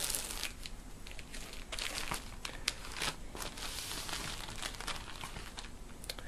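Clear plastic shrink wrap crinkling and tearing as it is peeled off a vinyl LP sleeve, a steady run of irregular crackles.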